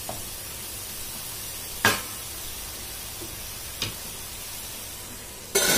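Grated beetroot sizzling steadily in ghee in a kadhai, with a sharp knock about two seconds in, a fainter one near four seconds, and a louder clatter near the end.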